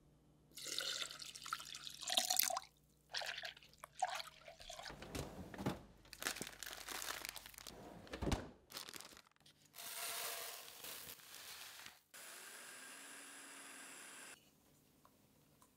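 Water poured from a glass measuring jug into a glass bowl, then clatter and a freezer drawer being opened and handled. Near the end a countertop blender runs steadily for about two seconds, grinding frozen spelt grain into flour, and stops suddenly.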